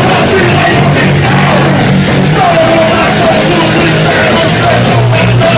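Punk rock band playing live: distorted electric guitar and bass chords over drums, with a shouted vocal line.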